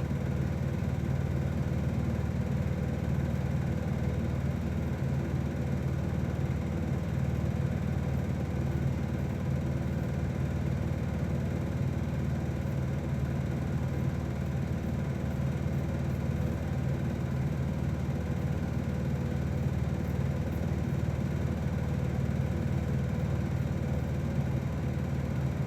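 Steady low machine hum with a faint higher tone over it, unchanging throughout.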